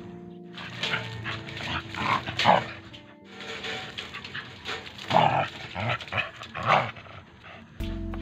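A dog barking in two runs of several barks each, about half a second apart, with a short pause near the middle.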